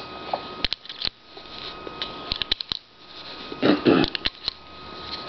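Cartridges being pushed into the chambers of a Smith & Wesson Model 686 revolver's swung-out cylinder: a scatter of small, sharp metallic clicks, with a quick run of several about two and a half seconds in.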